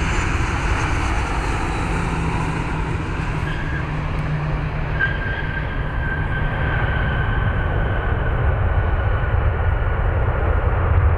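Jet engines of a United Airlines Boeing 737 landing and rolling out on the runway: a steady rumble with a whine that falls slightly in pitch in the middle, growing a little louder toward the end.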